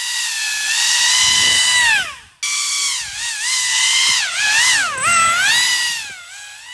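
Pro Boat Aerotrooper RC airboat's brushless electric motor and air propeller running with a loud, high whine, the pitch rising and falling as the throttle is worked. The sound cuts out abruptly about two and a half seconds in, then picks up again.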